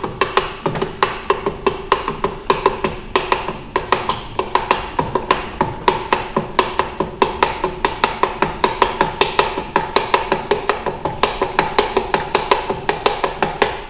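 Rapid, light, evenly spaced taps, about four to five a second, driving a piston through a ring compressor into a cylinder bore of a VAZ 21083 engine block. The metal ring compressor rings with a steady tone under each tap.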